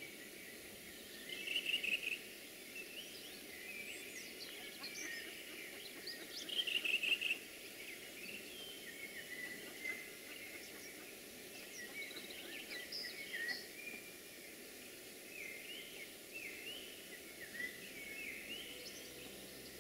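Small songbirds calling and singing in a spring forest: many short chirps and phrases over a faint steady hiss, with two louder rapid trills about a second and a half in and again about six and a half seconds in.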